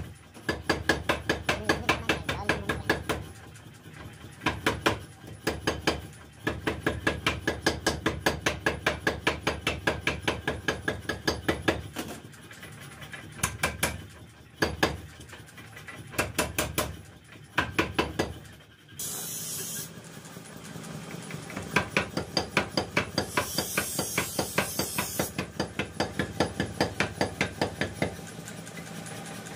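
A 30 kg power hammer pounding red-hot steel on its die, about four blows a second, in runs broken by short pauses as the bar is turned and moved, drawing out a sickle blank.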